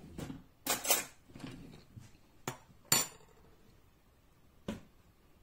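Kitchen utensils and containers knocking and clinking, a few separate sharp clatters with the loudest about three seconds in.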